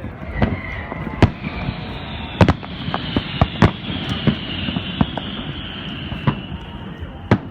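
Fireworks going off: about ten sharp, irregularly spaced bangs over a continuous hiss.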